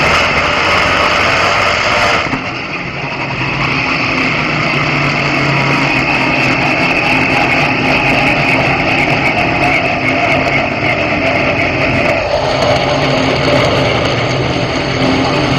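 Race car engine heard from inside the cockpit, running hard and loud with a dense roar of road and wind noise. The sound dips briefly about two seconds in, then holds steady, and its note changes again about twelve seconds in.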